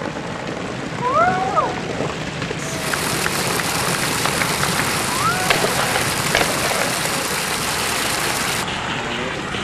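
Skateboard wheels rolling over pavement with a few sharp clacks, and two short shouts, about a second in and about five seconds in.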